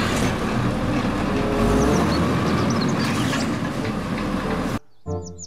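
Automated side-loading garbage truck running at the curb, engine and hydraulics working as its arm lifts a wheeled trash cart to tip it into the hopper. The sound cuts off suddenly near the end.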